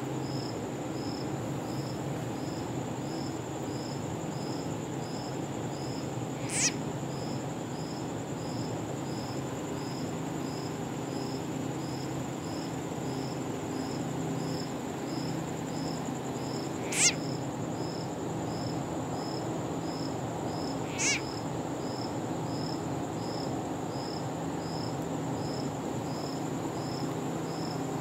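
Night insect chorus of crickets: a steady high trill with a regular chirp a little more than once a second, over a low steady hum. Three short sharp high calls sweep downward in pitch, about a quarter, three fifths and three quarters of the way through; the middle one is the loudest.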